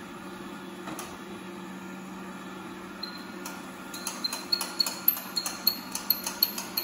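Proscenic 820T robot vacuum running with a steady hum. About halfway through, a quick run of sharp clicks sets in, several a second, louder than the hum.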